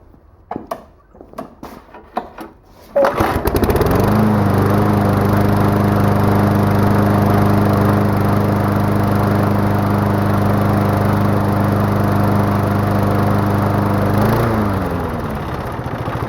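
A few clicks and knocks, then about three seconds in a Briggs & Stratton 190cc lawn mower engine starts, revs up within a second and runs steadily at high speed. Near the end its pitch drops as it slows to a lower running speed.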